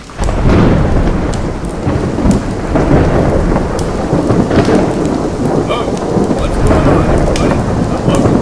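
Thunderstorm: loud, steady heavy rain with continuous low rumbling thunder and scattered crackles.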